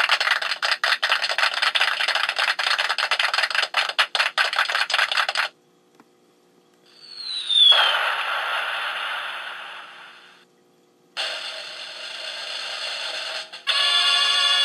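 Novelty sound-effect machine playing canned effects one after another through its small speaker: first a long crackling, clicking noise, then a short falling whistle into a burst that fades away, then another noisy clip that switches near the end to a steady buzzing tone.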